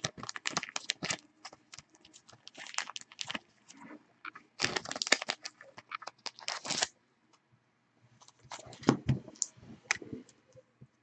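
Clear plastic card sleeve and bag crinkling and crackling in the hands as a trading card is slipped into it, in several short bursts with pauses between them.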